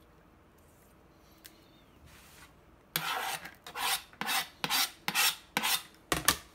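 After about three seconds of quiet, a run of about eight quick rasping scrapes: a knife blade scraping minced serrano chiles off a plastic cutting board.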